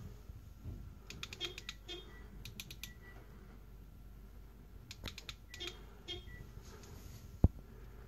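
Light clicks in three quick runs, a little like typing, and one sharp knock near the end.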